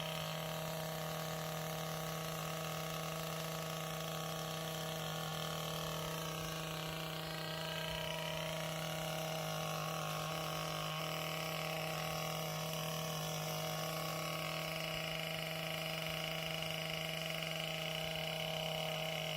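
Garden tiller's small engine running steadily, with a brief dip about seven seconds in.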